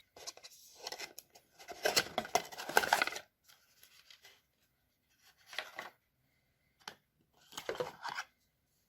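Product packaging being opened and handled: cardboard and plastic rustling and tearing for about three seconds, then three short rustles.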